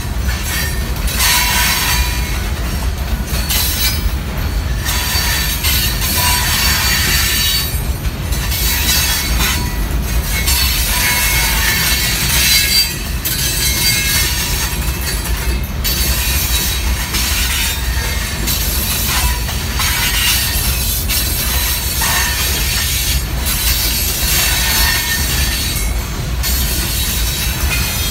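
Loaded hopper cars of a stone freight train rolling steadily past: a continuous low rumble of steel wheels on rail, with high-pitched wheel squeal coming and going.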